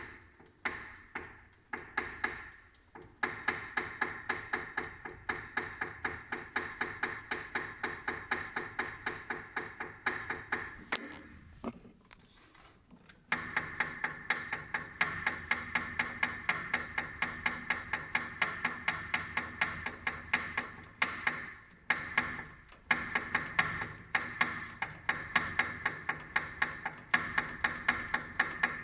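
Haier HW70-BP12758S washing machine knocking in a rapid, regular series of sharp plastic knocks while the drum runs. The knocks fade briefly about eleven seconds in and come back louder. The knock comes from the short, taut wire between the motor and its power-supply unit striking the unit's plastic cover as the drum sways while speeding up.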